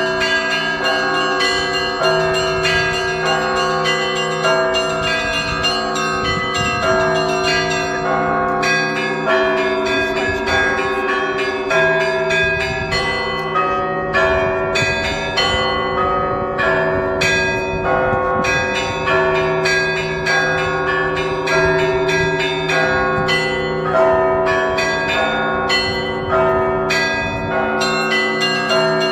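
Russian Orthodox monastery church bells rung in a continuous peal: quick, repeated strikes of the smaller bells over the sustained ringing of the larger bells.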